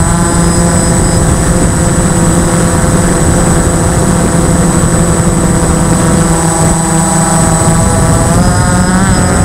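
Motor and propeller of a 3DX8 RC flying wing, heard loud and close from its onboard camera: a steady droning whine whose pitch rises near the end.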